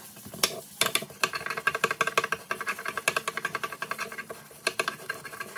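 Dish sponge scrubbing a wet porcelain kitchen sink coated with Comet bleach cleanser powder: quick back-and-forth strokes, several a second, with a slight squeak in them.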